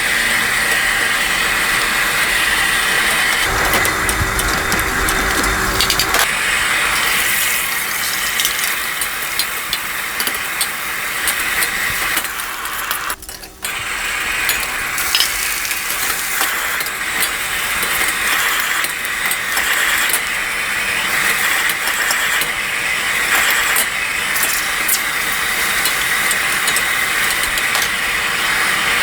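Noodles and egg frying in a hot pan: a steady sizzle with a spatula scraping and clicking against the pan, cutting out briefly about halfway through.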